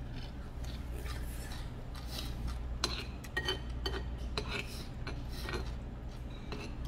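Metal spoon and chopsticks clinking and scraping against a ceramic bowl as jajangmyeon noodles are stirred and scooped, with a cluster of sharper clinks in the middle. A steady low hum runs underneath.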